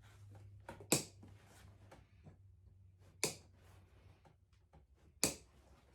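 Three sharp clicks, about two seconds apart, with faint handling and rustling noises between them, as a car seat's upholstery cover is worked off the seat frame. A low hum sits under the first second or so.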